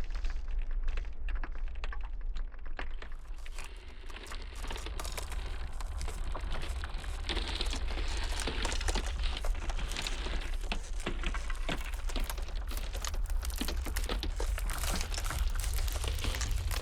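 Iceberg ice cracking: dense, irregular small cracks and pops over a steady low rumble.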